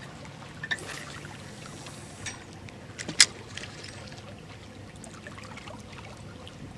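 Water lapping and trickling at the bank, with a few sharp clicks from handling the rod and spinning reel, the loudest about three seconds in.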